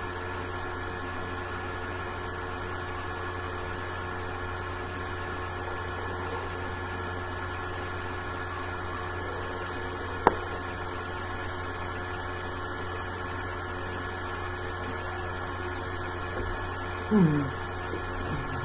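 Steady electrical hum with a few fixed tones over low room noise, broken by a single sharp click about ten seconds in and a short voice-like sound with a falling pitch near the end.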